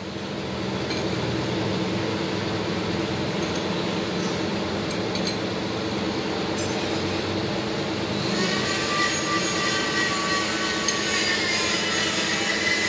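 Steady mechanical running noise with metal clinking. From about eight seconds in, a thin metallic squeal joins it.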